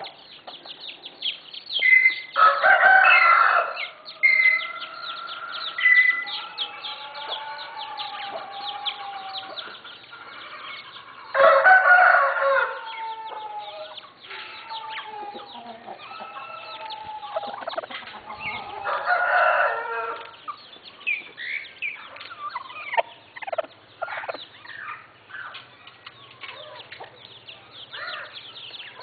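Young Asil gamecock roosters crowing three times, each crow about a second and a half long, with clucking and softer short calls between.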